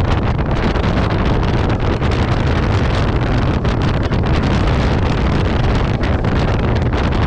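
Wind buffeting the microphone: a loud, steady, low rumbling noise with no other distinct sound standing out.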